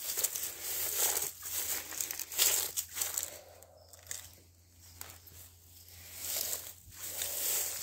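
Footsteps crunching and rustling through dry grass and dead leaves, in irregular bursts with short pauses between them.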